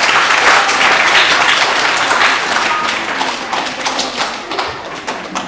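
Audience of schoolchildren clapping in a hall, the applause thinning out toward the end.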